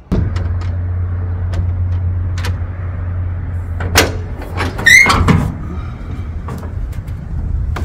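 Small wooden camper door swinging open with a short hinge squeak about five seconds in, among knocks and thumps of someone climbing out through it, over a steady low rumble.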